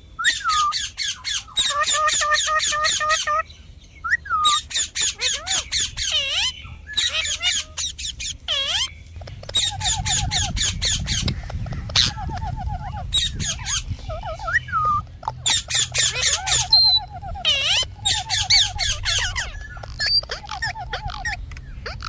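Parrot chirping and squawking in quick bouts of sharp, repeated calls, several notes a second, with short pauses between bouts.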